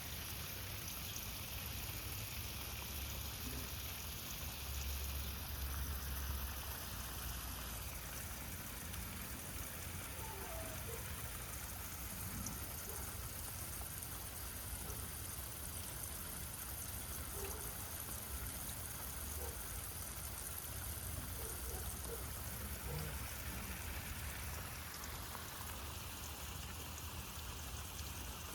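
Steady trickling water with a low rumble underneath.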